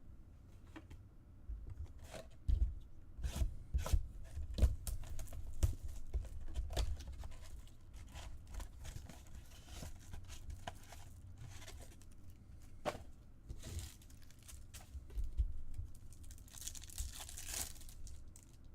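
Baseball-card packs being torn open and handled: a run of crinkly rips and rustles, with a longer tear near the end.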